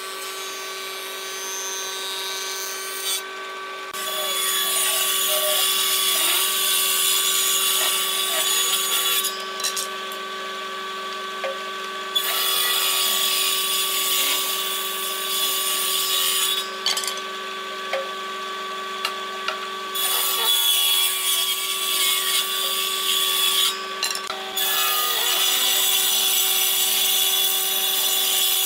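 Combination woodworking machine running steadily, with four long, loud stretches of cutting as pallet-wood boards are ripped on its table saw section; the motor keeps running between the cuts.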